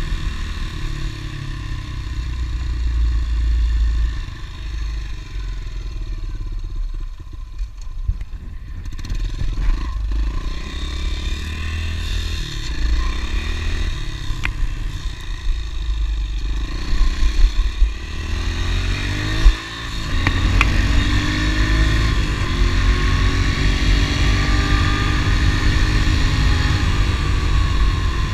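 Honda CRF110 pit bike's small single-cylinder four-stroke engine under way, its pitch falling back and then climbing again as the rider eases off and accelerates, over a low wind rumble. A single sharp knock comes about two-thirds of the way in.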